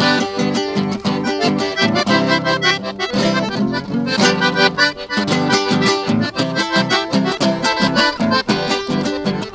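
Accordion playing a lively chamamé tune in C major, over a regular pulse of low bass strokes.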